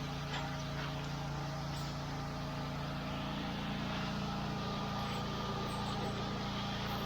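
Steady drone of the engine powering a soft-wash pump rig, running at a constant speed.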